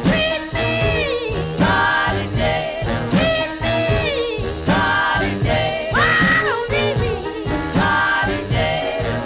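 Background music with a steady beat and a melodic lead line.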